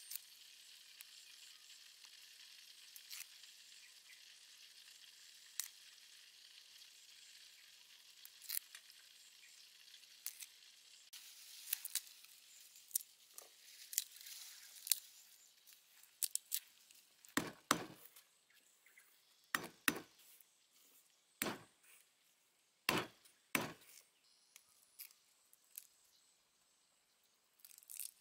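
Hand food preparation on a wooden cutting board: faint rustling and small clicks as kaffir lime leaves are torn and garlic cloves peeled, then about half a dozen sharp knocks of a knife on the board in the second half.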